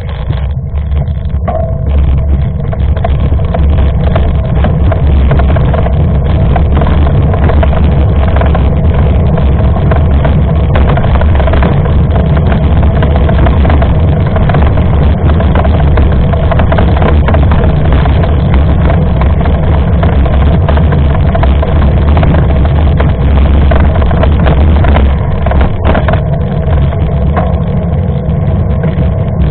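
Steady loud low rumble of riding noise on a mountain bike: wind on the microphone and tyres on the trail, with scattered small knocks.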